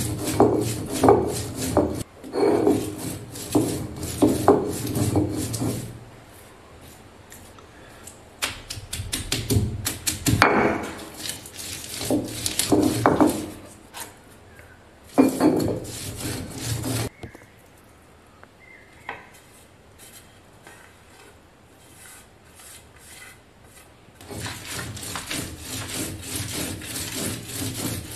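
Stone roller rolled back and forth on a flat stone grinding slab, scraping in rhythmic strokes as it crushes curry leaves, green chilli, shallots and grated coconut into a coarse paste. The grinding stops for several seconds in the second half and starts up again near the end.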